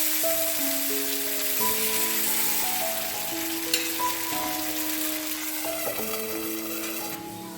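Jackfruit batter frying in hot coconut oil in a pan, a steady sizzle that fades near the end, under background music playing a simple melody.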